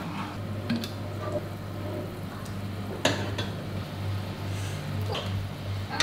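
Scattered kitchen clatter: a few separate sharp knocks of a knife, utensils and cookware, the loudest about halfway through, over a steady low hum.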